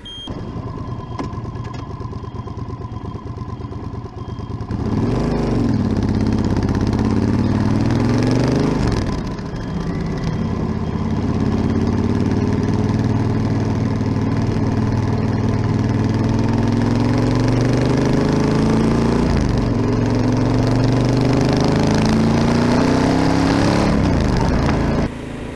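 Yamaha Super Tenere XT1200ZE parallel-twin engine under way. It runs steadily at first, then gets louder and pulls through the gears, its pitch climbing and falling back at each of several gear changes. It drops away suddenly near the end.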